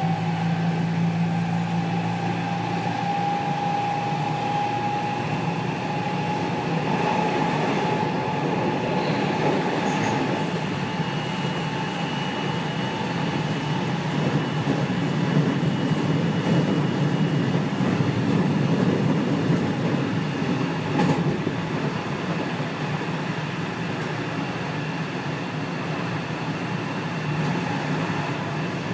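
Interior running sound of a JR West 207 series motor car with a Toshiba GTO inverter: steady wheel-and-rail noise under the traction motor and inverter whine. A tone rises slightly in pitch over the first several seconds, and a higher tone comes in around the middle. This car's two inverters are out of step in their modulation sound, so they harmonise into an unusual whine.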